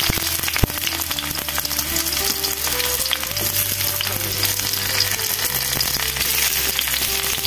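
Sliced garlic and ginger sizzling steadily as they fry in hot oil in a wok, under a quiet background tune.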